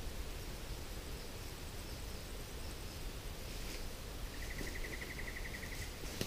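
Steady outdoor bush background hiss and low rumble, with a rapid pulsed trill from a wild animal starting about four seconds in, about ten pulses a second for under two seconds.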